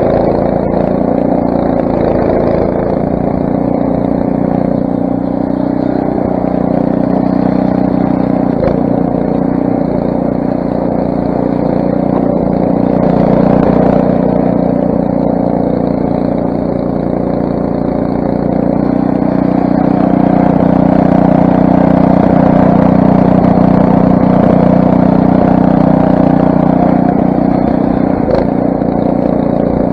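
Craftsman snowblower's 6 hp Briggs & Stratton single-cylinder engine running steadily, getting a little louder briefly about halfway through and again for several seconds later on.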